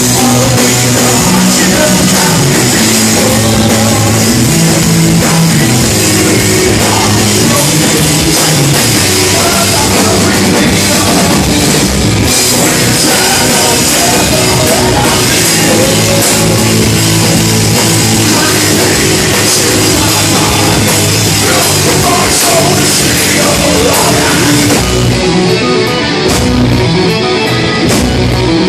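Live heavy rock band playing loud: drums, distorted guitars and a singer on the microphone. About 25 seconds in, the drums drop away and a guitar carries on mostly alone.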